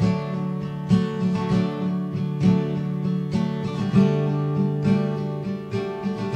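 Background music: acoustic guitar strumming chords at an easy, steady pace, with no singing.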